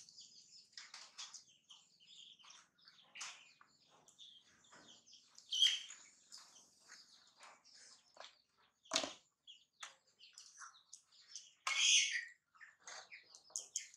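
Baby macaques' short, high-pitched squeaks and chirps, scattered through, with louder ones about six and twelve seconds in. A sharp click about nine seconds in.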